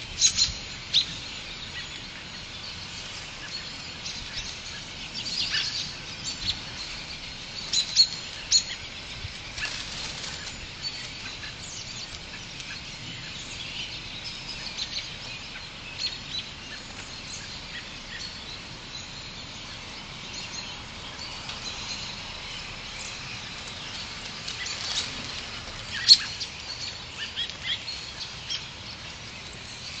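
A flock of small birds calling, many short high chirps overlapping over a steady background hiss, with a few louder sharp calls standing out.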